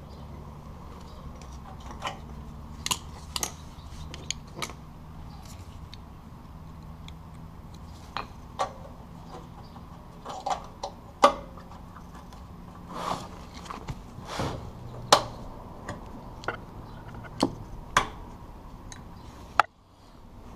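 Scattered metallic clicks and knocks of pliers and fingers working a bracket on a new steel fuel tank, bending it straight where the fuel pump assembly bolts up. The sharpest knocks come about 11 and 15 seconds in, over a steady low hum.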